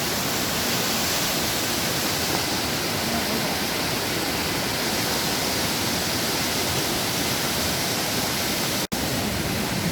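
Algar waterfall: a steady rush of falling water, briefly cutting out for an instant near the end.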